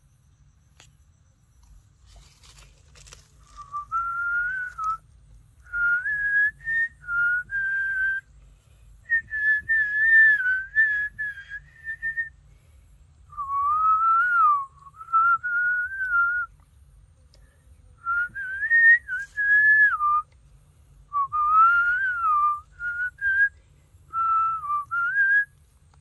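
A person whistling a slow, wavering tune in short phrases, beginning a few seconds in, to lull a baby macaque to sleep.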